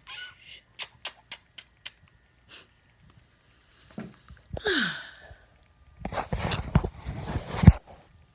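Umbrella cockatoo making a short, breathy, sneeze-like squawk with a falling whistle, after a few sharp clicks. Near the end comes the loudest part: about two seconds of rustling with low thumps.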